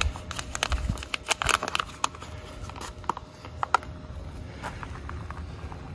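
Hands tipping a seedling out of a small plastic pot and pressing it into loose compost soil: irregular crackling and rustling of soil and pot, busiest in the first few seconds and lighter after.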